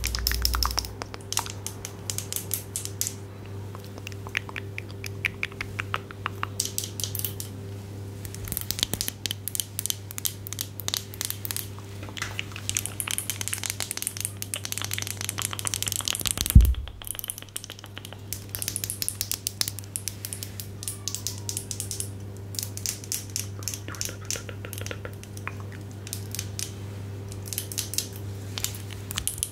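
Close-miked crinkling and crackling handling sounds: dense, irregular clicks and rustles, with one sharp low thump a little past halfway.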